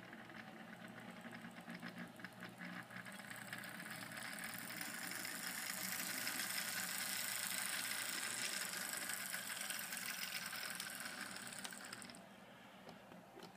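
HO-scale Athearn Blue Box SW1500 model switcher running with a string of loaded coal hoppers: a mechanical whir of motor and gears with rapid clicking from the wheels on the track. It grows louder as the train passes close and drops off suddenly about twelve seconds in.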